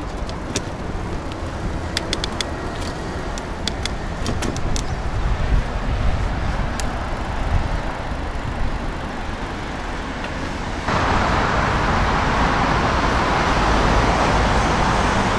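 Road traffic noise: cars passing, with a run of sharp clicks through the first seven seconds. About eleven seconds in the noise steps up suddenly to a louder, even level.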